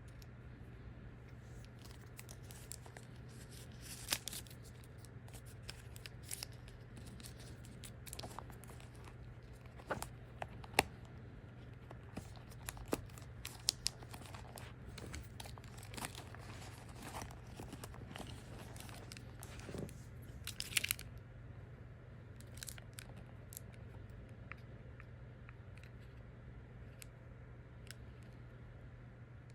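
Packaging being handled and opened: scattered crinkles, small tearing sounds and sharp clicks, with the busiest handling around ten and twenty seconds in, over a steady low hum.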